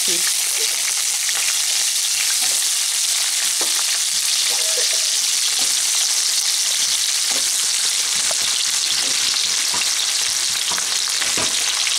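Hot mustard oil sizzling steadily in a kadai as raw banana chunks are added to it, with scattered light knocks throughout.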